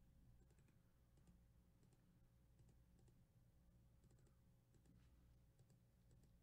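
Near silence with scattered faint computer clicks from the mouse and keyboard as a spreadsheet is edited, over a low steady hum.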